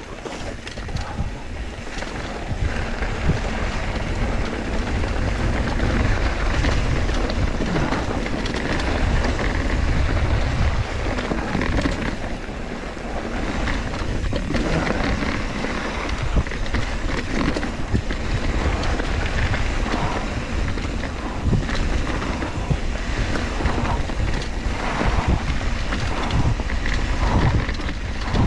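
Wind buffeting the action camera's microphone as a mountain bike rolls fast down a dirt singletrack, with a steady low rumble from the tyres and frequent short knocks and rattles as the bike hits bumps.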